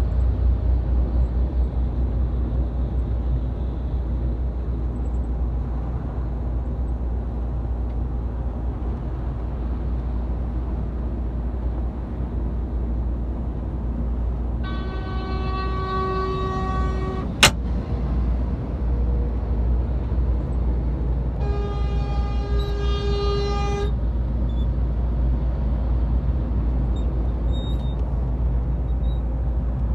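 Steady low engine and road rumble heard inside a lorry cab at motorway speed. A vehicle horn sounds two long blasts of about two and a half seconds each, the second a little higher in pitch, with a sharp click just after the first blast.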